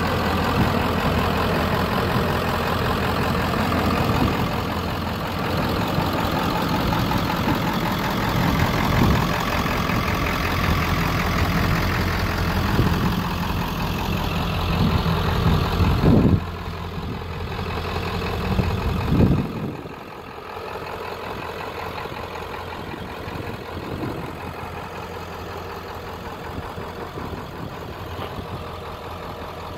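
1996 Ford F-250's 7.3-litre Powerstroke turbo-diesel V8 idling steadily. There are two brief louder surges about two-thirds of the way through, after which it sounds quieter.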